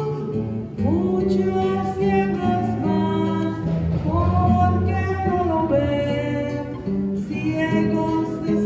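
Communion hymn sung with acoustic guitar accompaniment, the voice holding long notes over the chords.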